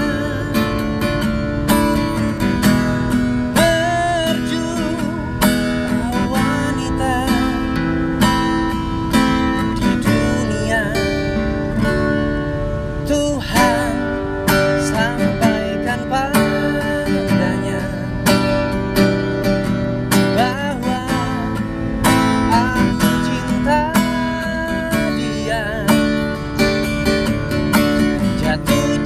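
Acoustic guitar strummed in a steady rhythm while a man sings along to it.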